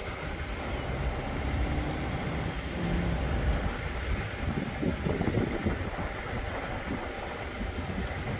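A car engine idling steadily with a low rumble.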